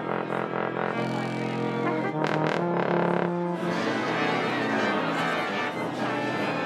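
Symphony orchestra warming up, with brass most prominent among strings and woodwinds: many instruments playing different held notes and runs at once, with no common beat. A couple of sharp percussive hits cut through a little past two seconds in.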